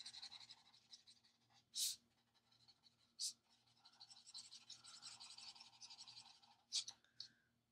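Faint scratching of an alcohol marker's felt tip stroking across a coloring-book page, with three short louder scrapes about two, three and seven seconds in.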